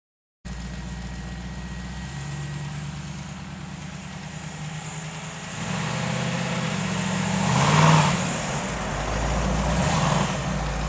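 Chevy small-block 350 V8 in a 1928 Ford Model A five-window coupe hot rod, running as the car drives by. The sound starts about half a second in, grows louder from about six seconds in, is loudest around eight seconds as the car passes close, and swells again near the end.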